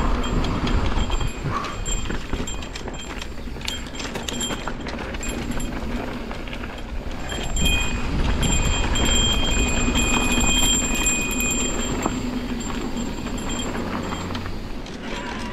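Mountain bike riding down a dirt trail: tyres rolling and the bike rattling and knocking over rough ground, with wind rumbling on the microphone.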